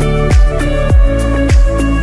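Music with a steady beat of deep kick drums, a little under two a second, over held chords.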